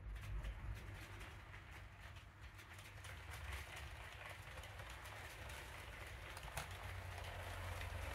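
HO-gauge model electric train rolling over KATO Unitrack and a hand-built diamond crossing, its wheels clicking over the rail gaps and joints. The rolling noise grows slowly louder as the train comes closer.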